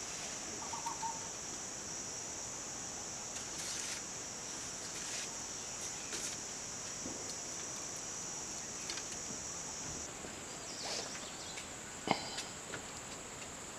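Steady high-pitched chirring of insects such as crickets or cicadas, with a few faint taps and a sharper knock near the end.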